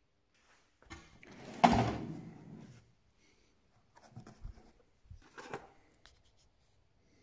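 Hand-tool handling: a sharp knock with a short rattle about a second and a half in, the loudest sound, then lighter metal clinks as an E12 Torx ratcheting wrench is taken from a foam-lined tray and set down on a metal surface.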